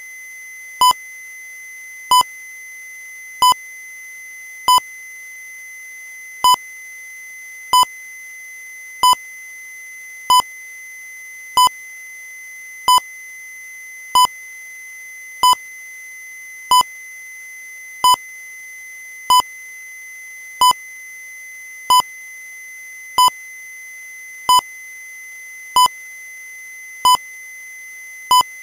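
Short electronic beep repeating evenly about every 1.3 seconds, over a continuous steady high-pitched tone.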